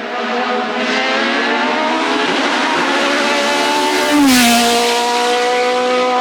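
Hillclimb race car engine at full throttle, its note rising steadily as it accelerates. About four seconds in it is loudest and the pitch drops sharply, then it holds a high, steady note.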